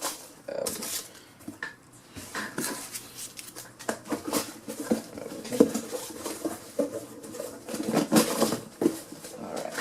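Handling noise from a die-cast model airliner's packaging: irregular rustling with small clicks and knocks as the model is taken out of its box.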